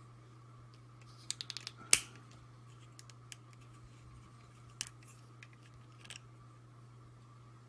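Light clicks and taps of hard plastic toy parts being handled: a quick run of small clicks about a second and a half in, a sharper click just before two seconds, then a few scattered ones. A faint steady hum sits underneath.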